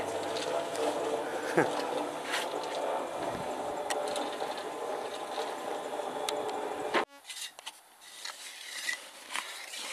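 Small cement mixer running, its drum turning and churning mortar: a steady mechanical hum with scattered scrapes and knocks. It cuts off abruptly about seven seconds in, leaving only faint, scattered sounds.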